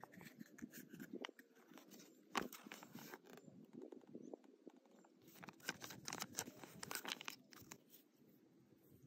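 Faint handling sounds: crinkling of a paper toy instruction leaflet and light clicks of small plastic toy parts, with a busier run of crackling in the second half.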